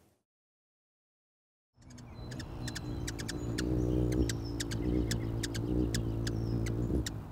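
Dead silence for nearly two seconds, then soft music starts, with many quick, high ticks or chirps scattered over it at irregular spacing.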